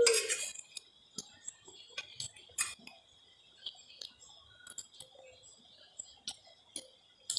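Quiet eating: chewing with small wet mouth clicks, and light clicks of a metal spoon against an enamel plate, with one louder knock right at the start.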